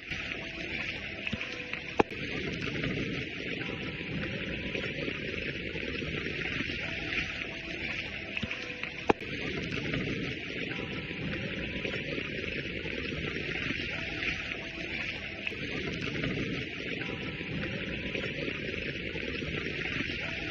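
Steady rush of water, with a sharp click twice, about two seconds in and again about nine seconds in.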